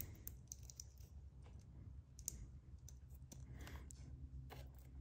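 Faint, scattered small plastic clicks and light handling noise of servo-lead connectors being pushed onto a small RC receiver's pins.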